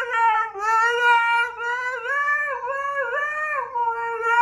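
Siberian husky howling: one long, wavering howl whose pitch glides up and down with small breaks.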